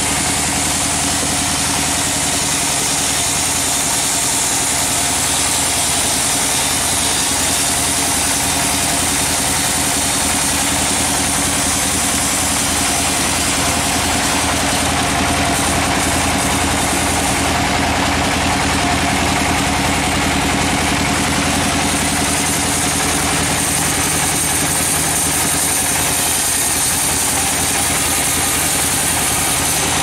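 Band sawmill sawing lengthwise through a log: a steady machine drone from the mill's drive, with the blade's even hiss in the wood laid over it.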